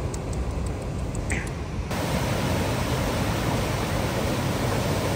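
Waterfall: St. Mary Falls rushing into its rock gorge, a steady full hiss of white water that comes in suddenly about two seconds in. Before it there is a duller low rumble with a few faint ticks.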